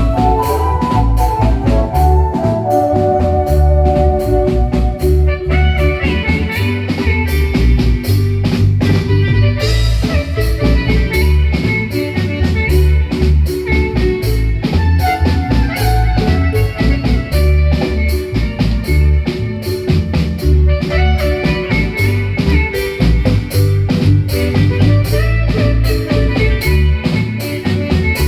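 Marimba band playing live: quick struck marimba notes over a steady drum beat and bass line.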